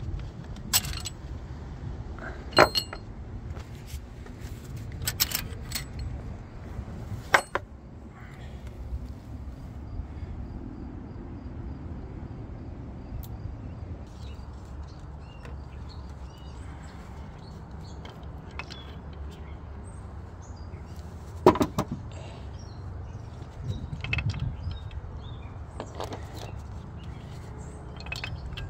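Small metal engine parts clinking and knocking as they are handled on an open diesel cylinder head. The clinks come in scattered groups, most of them in the first quarter and the last third, over a steady low rumble.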